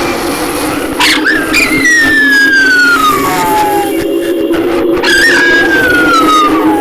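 Two long, high, descending howl-like wails, each sliding down in pitch over about two seconds, over a steady low eerie drone: a horror sound effect.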